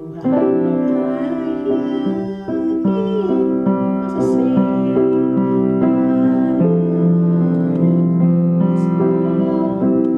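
Piano keyboard playing a slow passage of held chords, the chord changing every second or two.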